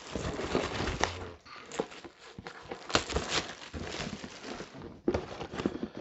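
Plastic shrink wrap being slit and peeled off a cardboard game box: dense crinkling at first, then sparser crackle with a few sharp ticks.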